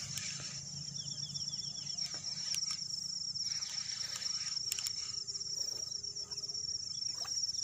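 Insects trilling in a steady, high, rapidly pulsing chorus, with a few faint clicks about halfway through.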